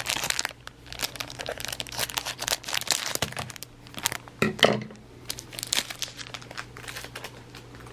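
Cellophane wrapper of a 1988 Donruss baseball card rack pack crinkling and tearing as it is opened, in quick irregular crackles, with cards rustling in the hands. A faint steady low hum runs underneath.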